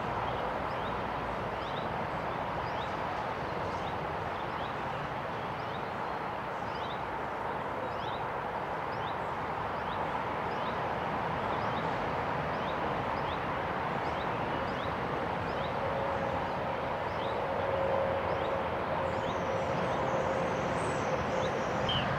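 Steady hiss of road traffic noise, with a bird repeating a short, high, downward-sliding call about once a second.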